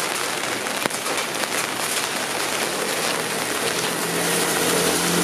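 Steady rain falling, a dense hiss with sharper drops ticking now and then; in the second half a vehicle's engine hum comes in and grows louder.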